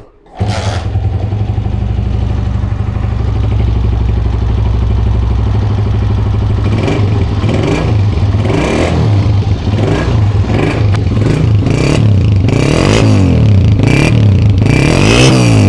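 Freshly rebuilt Honda CG125's single-cylinder four-stroke engine kick-started, catching about half a second in and idling steadily, then revved up and down repeatedly from about seven seconds in. Only a light tappet clatter remains, from valve clearances deliberately left slightly loose after a valve grind, and the connecting-rod knock is gone.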